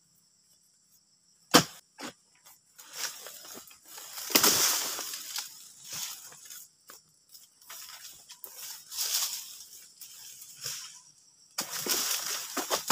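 An oil palm harvesting pole's blade working at the base of the palm's fronds: one sharp knock, then several long rustling, scraping swishes as the blade is pushed and the stiff fronds shift and scrape.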